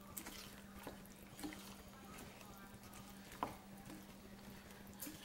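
Wooden spoon stirring pecans through a runny syrup pie filling in a ceramic bowl: faint wet stirring with a few soft clicks of the spoon on the bowl, the sharpest about three and a half seconds in, over a faint steady hum.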